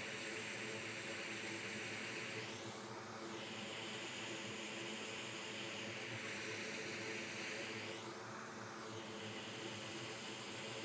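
Bench fume extractor fan running with a steady hiss, which dips briefly twice, about two and a half seconds in and about eight seconds in.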